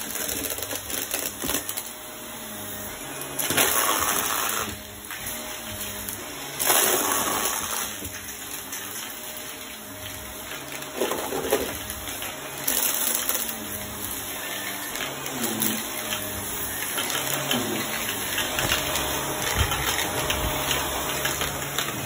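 Shark upright vacuum cleaner running with its brush roll on a rug, a steady rushing sound, with a few brief louder bursts, about four and seven seconds in, as small beads and debris are sucked up.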